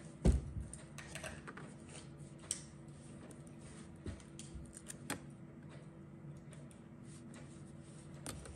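Scattered light clicks and taps of stickers and a planner being handled on a desk, with a low thump about a third of a second in, over a faint steady hum.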